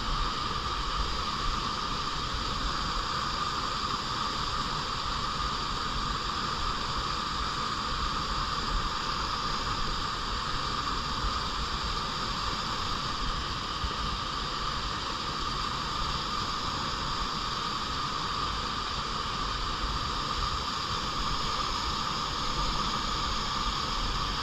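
Clear stream flowing: a steady, even rush of water that does not change.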